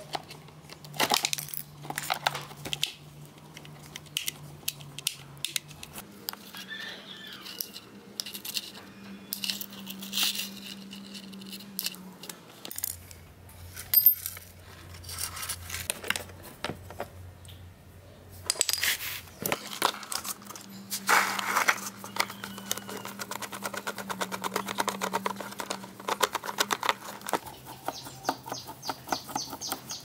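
Irregular metallic clicks, taps and clinks of a screwdriver and small loose parts and screws while an old table fan's switch box and motor are taken apart, over a low steady hum. Near the end come rapid, even ticks as a screw is turned out of the oscillation bracket.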